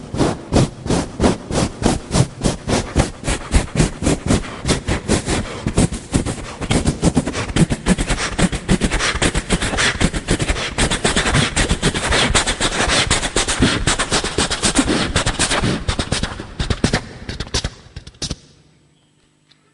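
Vocal mimicry of a train pulling out of a platform, done with the mouth: rhythmic beats that quicken from about two or three a second into a fast, dense clatter, then fade away shortly before the end.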